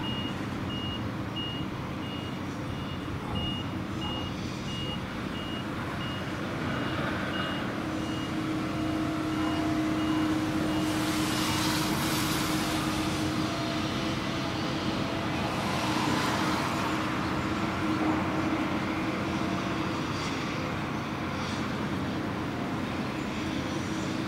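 Heavy diesel machinery working sand on a quay: a wheel loader's engine running steadily, its reversing alarm beeping evenly for about the first eleven seconds. The machinery noise grows louder through the middle, with two surges about eleven and sixteen seconds in.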